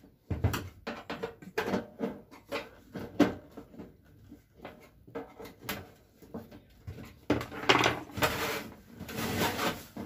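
The casing panel of a Rinnai gas fan heater being worked loose by hand: a string of clicks, knocks and rattles. In the last few seconds comes a longer scraping rattle as the panel is pushed and shifted.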